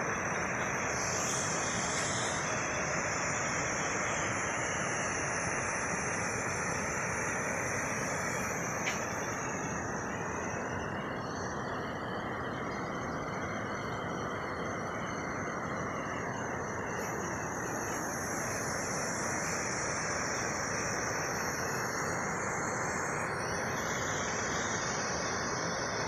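Waterfall cascading over rock ledges: a steady, even rush of falling water with no breaks, a high steady insect buzz above it.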